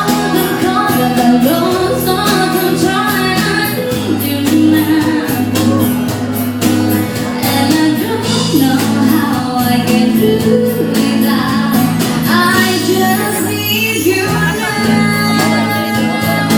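Ska band playing live: a steady drum beat with regular cymbal strikes, bass and guitar, with singing over the top.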